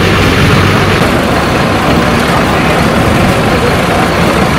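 Bus engine idling close by, a steady running sound with a low hum.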